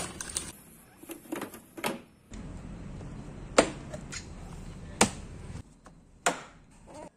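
A box cutter scraping through packing tape on a cardboard carton, then sharp clicks and knocks of an Olymplast ODC 03 M plastic drawer cabinet's panels being snapped together, with three loud snaps in the second half.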